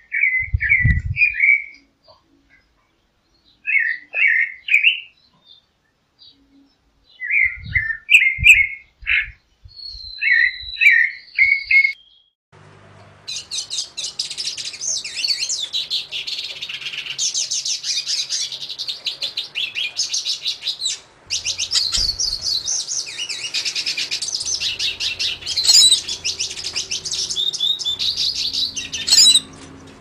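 A thrush singing short phrases of three or four clear notes with pauses between, with a few low thumps. About twelve seconds in, this gives way to a hooded siskin singing a long, fast, unbroken twittering song.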